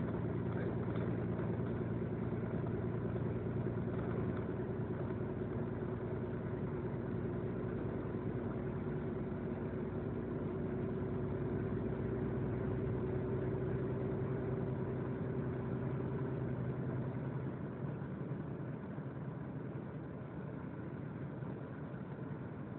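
Vehicle engine and road noise heard from inside the cab while driving, a steady hum. About three-quarters of the way through, part of the engine tone drops away and the sound gets slightly quieter.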